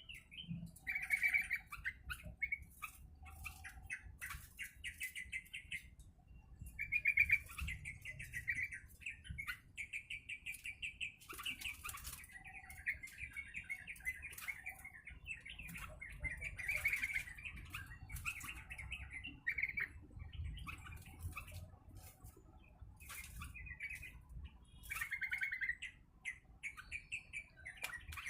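Yellow-vented bulbul (trucuk) chirping again and again in short bursts of rapid trilled notes, mixed with frequent short clicks and taps.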